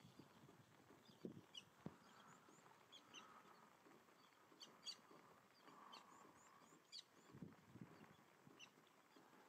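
Near silence with faint, short, high bird chirps every second or so and a few soft low rustles.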